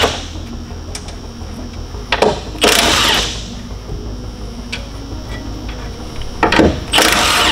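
Cordless impact wrench hammering in two runs, each a short blip and then a burst of under a second, one about two and a half seconds in and one near the end. It is spinning off the nuts that hold the Ford Mustang's front strut mount to the top of the strut tower.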